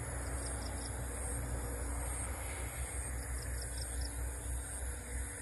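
Outdoor ambience: a steady low rumble under a continuous high insect drone. Two short runs of quick high chirps come through, one near the start and one about three seconds in.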